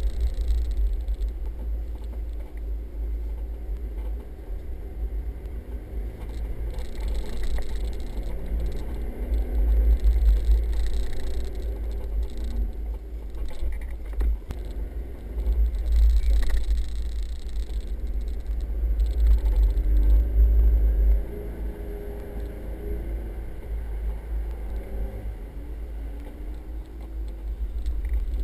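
A 4x4's engine and drivetrain heard from inside the cabin while driving over soft sand dunes: a heavy low rumble with the engine note going up and down. It is louder in stretches and eases off about two-thirds of the way through.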